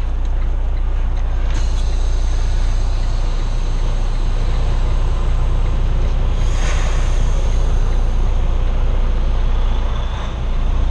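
Semi-truck's diesel engine running at low revs as the tractor-trailer is backed slowly, heard from inside the cab as a steady low rumble. A brief rushing noise swells and fades about halfway through.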